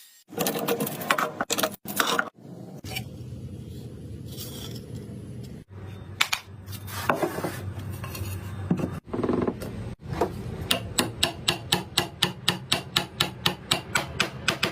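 Hand tools working wood: uneven rubbing and scraping strokes broken by several abrupt cuts, then a quick, even run of strokes, about five or six a second, near the end.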